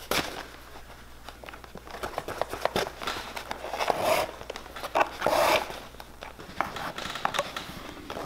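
Leather boot upper being hand-stitched with waxed linen thread: small ticks and rustles of needle and leather handling, and two longer rasps, about four and five seconds in, of the thread being drawn through and pulled tight.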